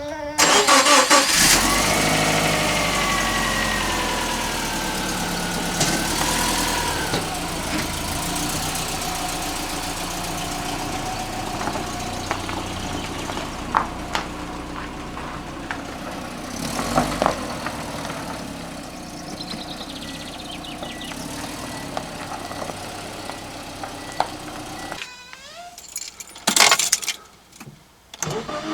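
Subaru Impreza's EJ20 flat-four boxer engine cranking briefly and catching, racing at first and then settling to a steady idle; it starts first turn of the key with the original crank sensor refitted, so the no-start fault is cured. Near the end the engine sound stops and a few loud knocks follow.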